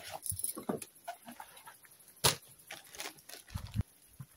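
Unboxing handling noises: light rustles and clicks of packaging and items being moved, one sharp knock about two seconds in, and two dull low thumps near the end.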